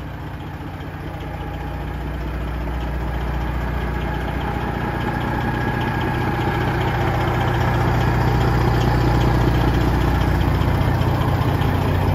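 Diesel engine of a Peterbilt semi truck idling with a steady low rumble, growing gradually louder.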